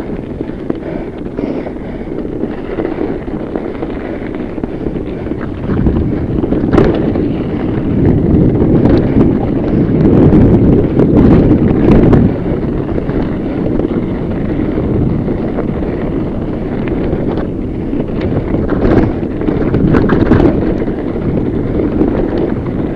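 Wind rushing over an action camera's microphone and fat-bike tyres rolling on a rough mountain-bike trail. Sharp knocks and rattles come as the bike hits bumps. The noise grows louder about six seconds in and eases after about twelve seconds.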